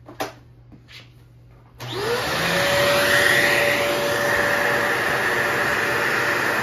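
A couple of short handling clicks, then a vacuum cleaner with a brush attachment is switched on about two seconds in. Its motor spins up to a steady whine over a rush of air.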